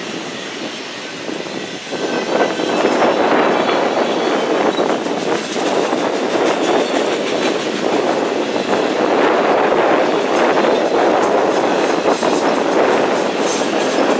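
Freight cars of a mixed freight train, autoracks and tank cars, rolling past close by: a steady rumble of steel wheels on rail with repeated wheel clicks, getting louder about two seconds in.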